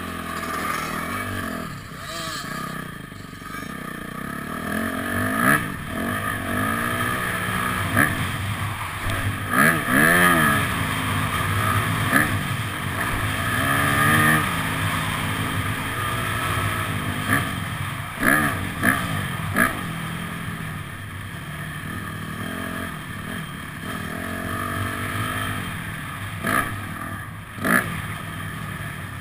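Yamaha motocross bike's engine, heard from the onboard camera, revving up and down repeatedly as it rides the dirt track. Occasional sharp knocks cut through, and wind rushes on the microphone.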